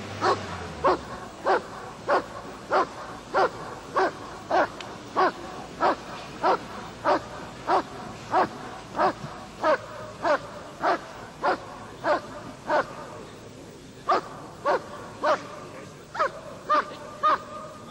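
Dog barking in a steady, even rhythm, about one and a half barks a second, with two short breaks near the end.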